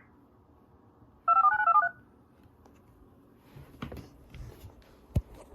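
A quick string of touch-tone (DTMF) control tones on the weather radio broadcast about a second in, lasting about half a second, each tone a pair of pitches that step as the digits change. Low hiss and a few faint clicks follow, with one sharp click near the end.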